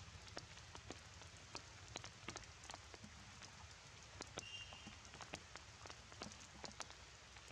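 Faint rain: scattered raindrops ticking irregularly on wet ground and leaves over a soft hiss. A brief high chirp comes about halfway through.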